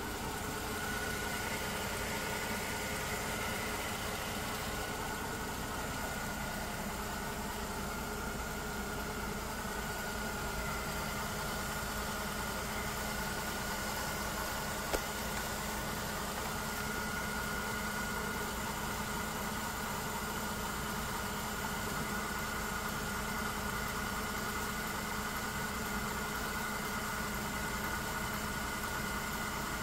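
Mercedes-Benz M272 V6 engine idling steadily, heard from underneath the car, with a thin steady whine running through it. There is one sharp click about halfway through.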